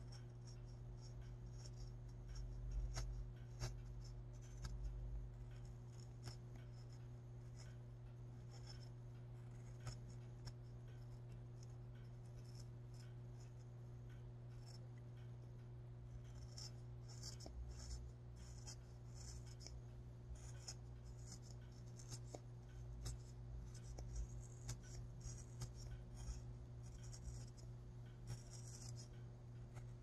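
Faint, irregular scratching and small clicks of hand work on a craft piece, busier in the second half, over a steady low hum.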